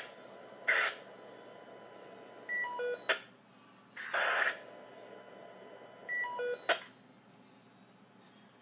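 Electronic sounds, twice about three and a half seconds apart: each time a short burst of hiss, then a quick falling run of beeps stepping down in pitch, ending in a sharp click.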